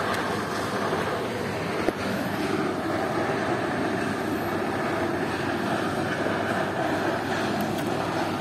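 Steady rumbling background noise with no clear pitch, and one sharp click about two seconds in.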